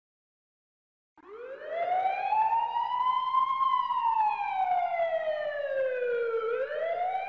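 Ambulance siren sounding a slow wail. After about a second of silence it starts and rises, slides slowly down over several seconds, then climbs again near the end.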